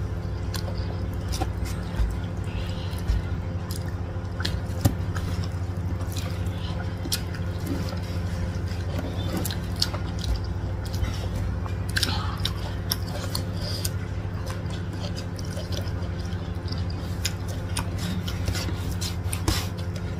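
Close-up eating sounds: chewing and wet mouth clicks, with fingers squishing rice and flat rice noodles on a metal tray. A steady low hum runs underneath.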